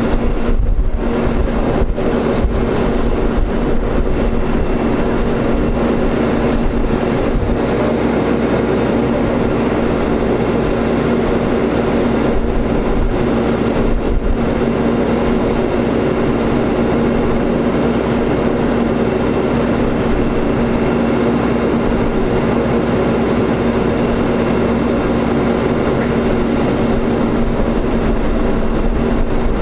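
Digger-derrick truck's diesel engine running steadily, driving the hydraulics of the Terex Telelect Commander 6000 boom, with a steady droning hum.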